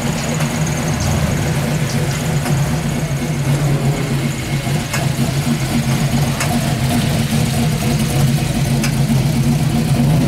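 Supercharged V8 of a Chevy Nova SS running at low speed as the car rolls slowly past. It makes a steady, uneven low rumble that grows a little louder toward the end.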